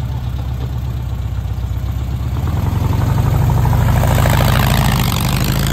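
Engine of a motorcycle-based three-wheeled trike running at idle, then getting louder about halfway through as the trike pulls away.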